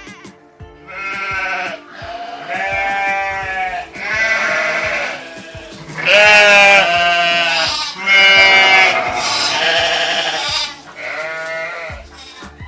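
Sheep bleating: about six long, wavering bleats in turn, the loudest about six seconds in, over steady background music.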